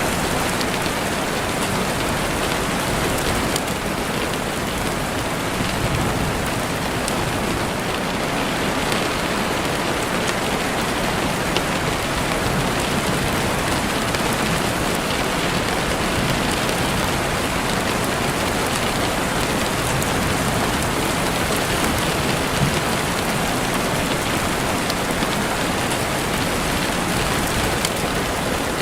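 Steady rain falling on the forest, an even dense patter that holds at one level, with a few faint scattered crackles from a campfire.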